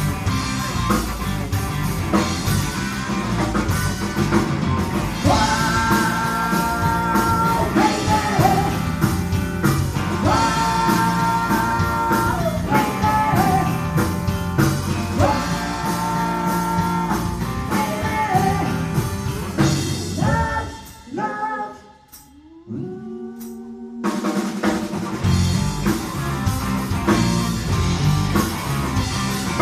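Live rock band playing: electric guitar, electric bass and drum kit under a female lead vocal holding long sung notes. About 20 seconds in, the band drops out for roughly three seconds, leaving only a few sparse notes, then comes back in full.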